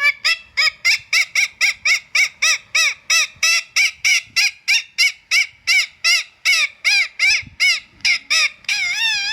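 Indian ringneck parrot calling in a rapid, steady series of short shrill calls, about three a second, each rising then falling in pitch, ending with a longer drawn-out call.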